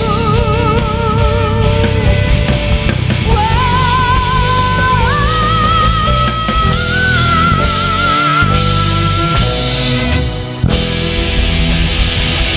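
Live rock band playing the end of a song while a woman sings a long, high, belted note with wide vibrato; the note climbs in steps and is held for about five seconds before it stops, and the band then hits a closing accent about ten and a half seconds in.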